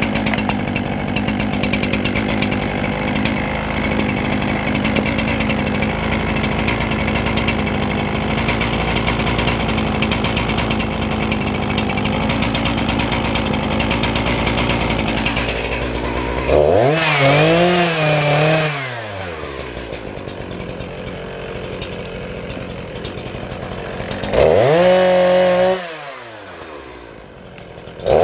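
Shindaiwa 55cc two-stroke professional chainsaw running steadily without cutting. About two-thirds of the way through, the throttle is blipped and it revs up and falls back. It then idles more quietly and revs briefly again twice near the end.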